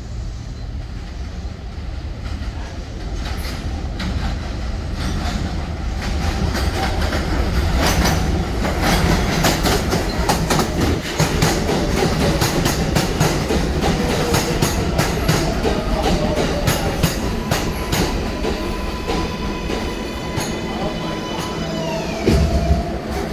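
R142A subway train pulling into the station: a rumble building as it approaches, then wheels clicking over rail joints as the cars pass alongside, with some wheel squeal. Near the end its motor whine falls in pitch as it brakes to a stop, followed by a short loud burst.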